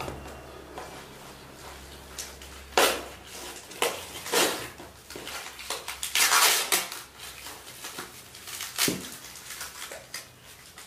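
Plastic wrapping around seedlings' soil crinkling and rustling in several short bursts as the potted seedlings are handled and set down, with a few light knocks.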